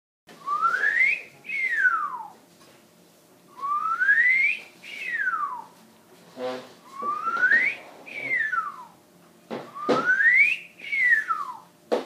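A person whistles four times, each a note gliding up and then one gliding back down. These are whistle commands for a TV whistle remote control, where a low-to-high note changes the channel up and a high-to-low note changes it down. A few short knocks fall between the whistles.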